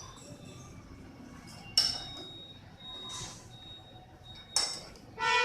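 Steel lathe tools clinking as they are handled and set in position: a few sharp metallic clinks, each with a short ring.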